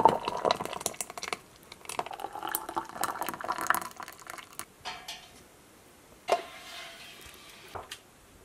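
Glass canning jars clinking and knocking as thick barbecue sauce is ladled through a plastic funnel into them, with liquid dripping and pouring. A single sharper clink with a short ring comes about six seconds in, and a small click comes near the end.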